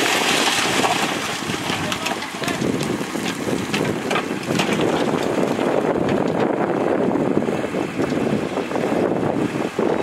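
Dump truck unloading soil: loose soil sliding out of the tipped bed in a steady crackling rush, with a brief dip just before the end.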